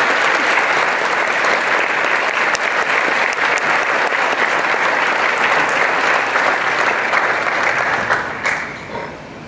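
Audience applauding, a dense steady clapping that dies away about a second before the end.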